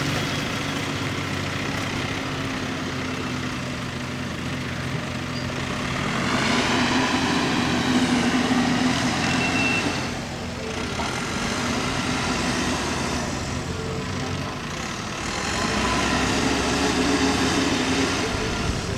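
Mahindra excavator's diesel engine running steadily while working. Its sound swells and strains twice, around six to ten seconds in and again near the end, as the machine takes load.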